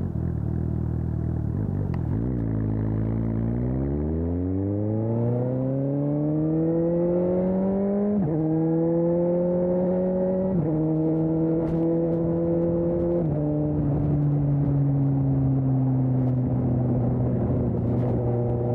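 2020 Suzuki GSX-S 750's inline-four engine through an aftermarket Storm exhaust, pulling away from low revs and revving up in a long rise. It then shifts up three times, the pitch dropping at each shift, and settles to a steady cruise.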